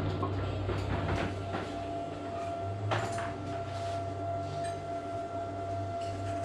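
Scattered light clicks and knocks of metal parts being handled on a disassembled steering column, the clearest about three seconds in, over a steady low hum and a faint constant tone.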